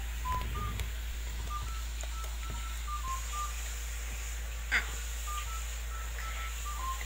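A simple tune of short, pure electronic beeps at changing pitches, a few notes a second, over a steady low hum. A short sharp sound comes a little past halfway.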